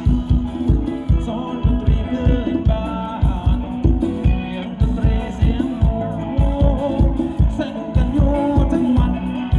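Live band playing Thai ramwong dance music, with a steady drum beat and a singing voice over the instruments.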